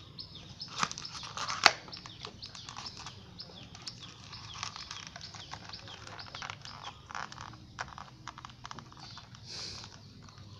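Dog chewing and tearing an instant noodle container, a steady run of crinkling, crackling packaging with sharp snaps, the loudest about a second and a half in.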